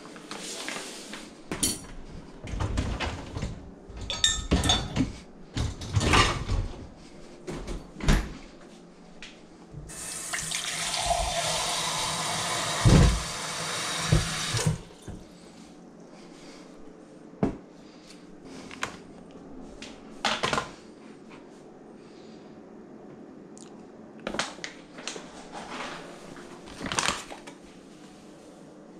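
Kitchen tap running into a cup at a stainless steel sink for about five seconds, starting about ten seconds in, with a sharp knock near the end. Before and after, knocks and rustles from bags and bowls being handled on the counter.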